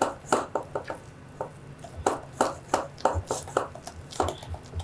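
Spatulas stirring and slapping thick spätzle dough against glass mixing bowls: a string of short, irregular wet clicks and scrapes, about three or four a second.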